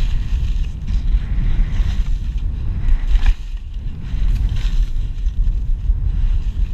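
Wind buffeting an action camera's microphone in a low, steady rumble as the rider slides down through snow. Brief hissing scrapes of snow come about three seconds and four and a half seconds in.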